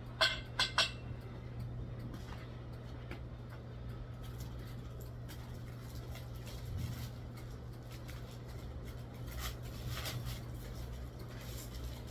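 Three sharp clinks in quick succession in the first second, then a steady low hum with a few faint clicks later on: hammock-stand parts being handled during assembly.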